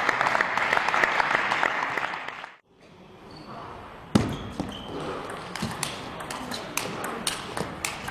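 Spectator noise with scattered clicks cuts off abruptly two and a half seconds in. From about four seconds, a table tennis rally follows: the ball clicks sharply off the paddles and the table, a stroke roughly every half second.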